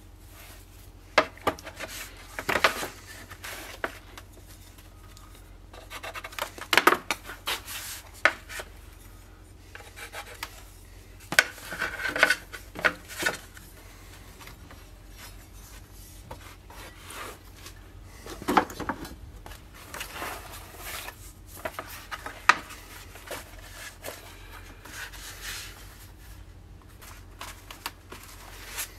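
Hand tools and materials being handled on a workbench: scattered sharp knocks and clicks as tools are set down and picked up, with intermittent scraping and rubbing against wood and leather.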